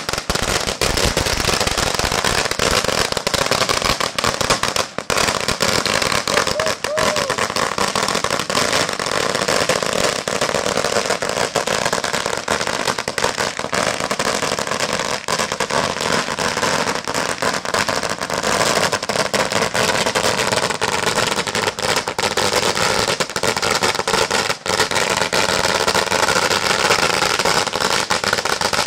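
Long strings of red Chinese firecrackers going off on the ground in a continuous, rapid, dense crackle of sharp bangs.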